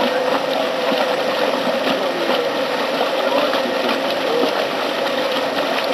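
Dry-mix cement mortar spraying machine running: a steady hum under a dense hiss of air and material, with scattered small ticks.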